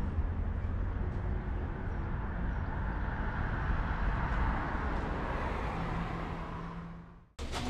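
Steady outdoor rumble and hiss with no clear engine note, fading away near the end.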